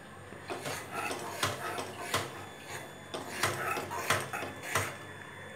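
Perforated metal ladle clinking and scraping against a metal kadai while stirring grated coconut in sugar syrup, in irregular knocks about once or twice a second.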